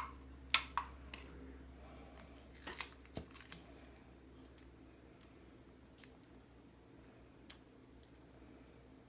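Ordinary adhesive tape being pulled and torn, with crinkling and sharp crackles in the first few seconds, then two lone faint clicks.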